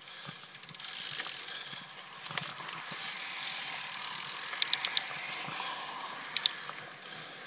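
Mountain bike rolling along a dirt trail: steady tyre and wind hiss, with the bike's chain and parts rattling in sharp clicks over bumps, a quick run of them a little past halfway and a pair near the end.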